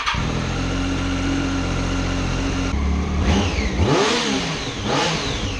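2007 Triumph Daytona 675's three-cylinder engine, just started after its oil change, idling steadily, then revved twice by the throttle about three seconds in, the pitch rising and falling each time, with a third rev starting at the end.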